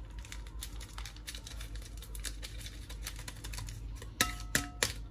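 Paper sachet of baking powder crinkling and being tapped as the powder is shaken out into a bowl: a run of small, rapid clicks and rustles, with two sharper clicks near the end.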